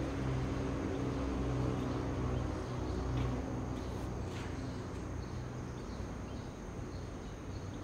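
Band-saw sawmill headrig running, a steady low mechanical hum with a fainter higher whir and a few light clicks, easing slightly in the second half.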